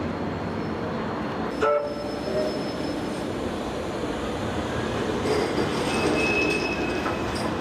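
Bombardier M5000 tram running past at low speed, a steady rumble of wheels on track, with a brief loud ringing clang about two seconds in and a high wheel squeal over the last couple of seconds.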